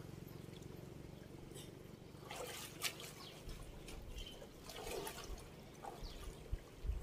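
River water sloshing and splashing as a man wades through it chest-deep, with sharper splashes about two and a half seconds in and again near five seconds.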